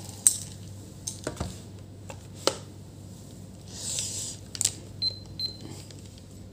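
Clicks and taps of a digital multimeter and its test probes being handled on a workbench, with a brief rustle about four seconds in and two short high beeps about five seconds in. A low steady hum runs underneath.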